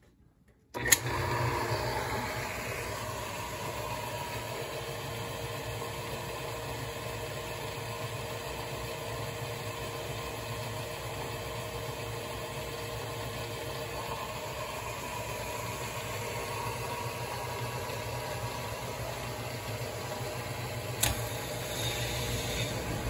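1967 Speed Queen washer drive mechanism switched on with a click about a second in, then running unloaded with a steady hum from its electric motor, V-belts and pulleys. A second click comes near the end, after which a higher hiss joins the running.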